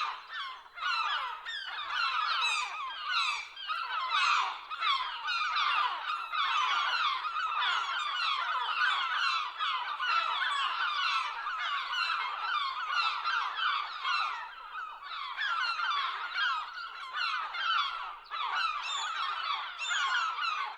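A flock of gulls calling: many short, overlapping squawks and cries with no pause between them.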